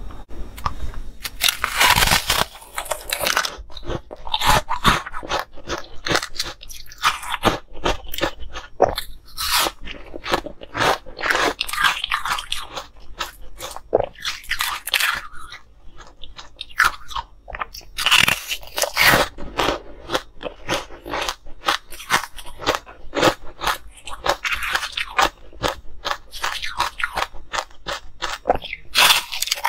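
Close-miked crunching and chewing of frozen ice pops: many irregular sharp bites and chews through hard ice, with heavier bursts of crunching about two seconds in, around twelve and eighteen seconds, and near the end.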